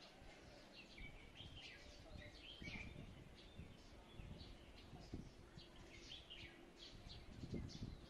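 Faint chirps and short twittering calls of small songbirds, many brief calls overlapping, over a low background rumble that swells briefly near the end.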